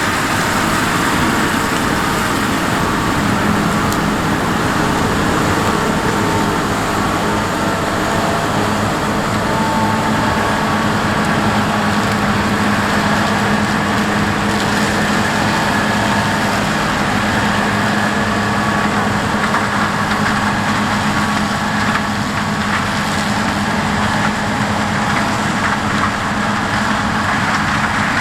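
Large diesel farm machinery running steadily under load, a constant engine drone with a low hum.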